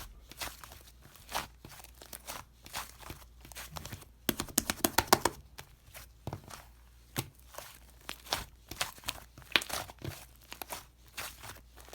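Slime being squished, stretched and pressed by hand, giving off crisp clicking and popping bubble sounds, with a dense run of pops about four to five seconds in and more near the end.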